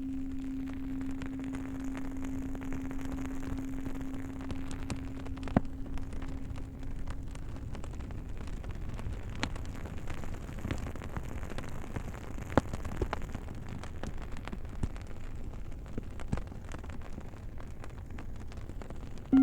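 Campfire crackling with scattered sharp pops, under the ringing of a low-pitched singing bowl that fades away about seven seconds in.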